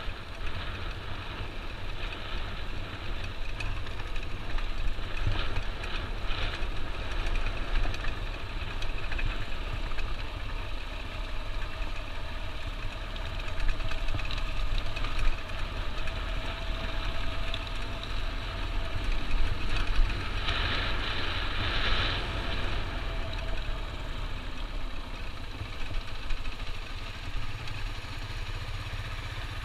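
Dual-sport motorcycle engine running steadily while riding over a gravel track, under heavy wind rumble on the onboard camera's microphone, with a stretch of louder hiss about two-thirds of the way through.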